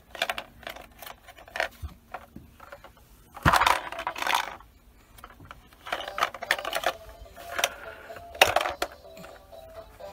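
Repeated clinks and clatters of small hard objects, in short irregular bursts, the loudest about a third of the way in and again near the end, over faint background music.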